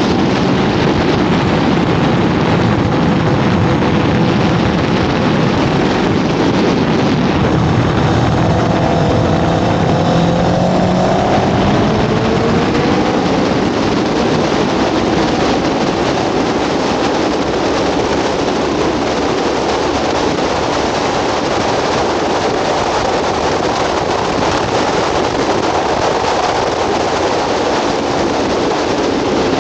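Loud, steady wind rush over an onboard camera on a sport motorcycle at track speed, with the bike's engine running beneath it. About a third of the way in, the engine note falls and then climbs again.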